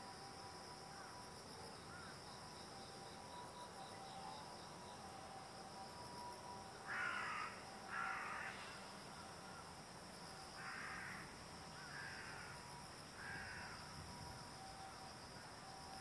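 Faint steady chirring of insects, with harsh calls of a bird: two louder ones about seven and eight seconds in, then three fainter ones later.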